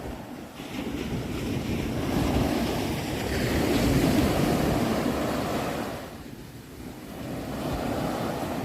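Ocean waves breaking and washing on the shore, swelling to a peak about four seconds in, easing off, then building again, with wind noise on the microphone.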